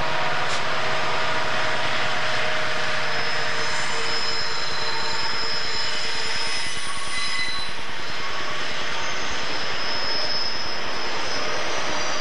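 Santa Fe diesel freight train passing close by. The engine drone of the trailing locomotive at the start gives way to the steady rumble and rattle of flatcars carrying highway trailers. From a few seconds in, thin high wheel squeals rise from the curve.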